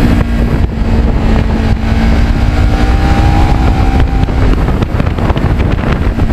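Kawasaki Ninja 650R parallel-twin engine running at a steady speed while riding, with heavy wind rush over the microphone.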